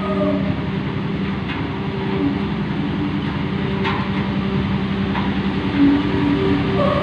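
Road roller's diesel engine running steadily, with a few faint clicks along the way.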